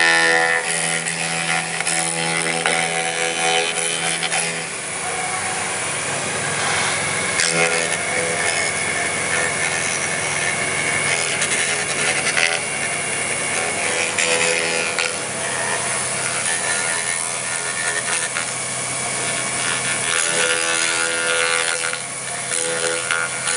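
CNC router milling a bubinga block with a vertical end mill: a steady spindle whine over the rasping noise of the cutter cutting wood. The tone shifts a few times as the cut changes.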